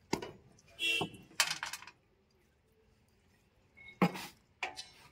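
Sharp knocks and clanks in a few short clusters: one at the start, a quick run of them about a second and a half in, and two more near the end, with quiet between.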